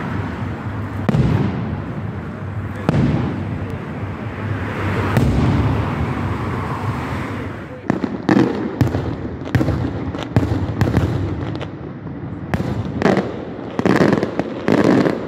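Fireworks display: aerial shells bursting with sharp booms and rumbling echoes. In the first half the booms are a few seconds apart. After a short break, a quicker run of bursts and cracks follows.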